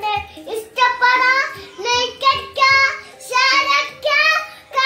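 A young boy singing in a high child's voice, in short phrases with brief pauses between them.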